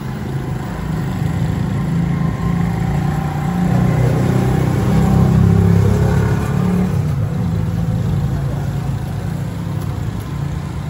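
A motor vehicle engine running close by, a low steady hum that grows louder towards the middle and then eases off.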